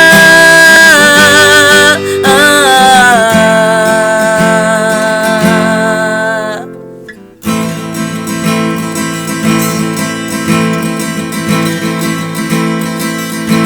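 Acoustic guitar and voice in a ballad cover, the voice holding the last note of the line with a slight waver until it fades out about six and a half seconds in. After a short break, the acoustic guitar strums on alone as an instrumental passage.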